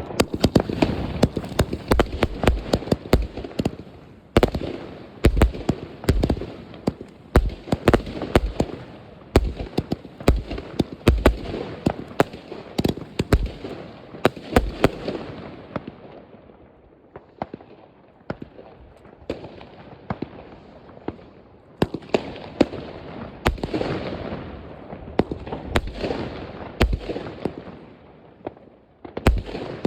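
Fireworks and firecrackers going off: a dense, rapid run of sharp bangs over continuous crackling, thinning out about halfway through and building up again near the end.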